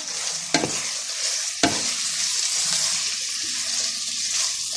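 Chili con carne sizzling in a frying pan while it is stirred with a wooden spoon. The spoon knocks sharply against the pan twice in the first two seconds and once more at the end.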